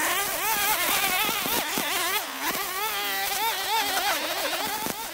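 Honeybees buzzing close around the hives, several at once, their pitch sliding up and down as they fly past the microphone.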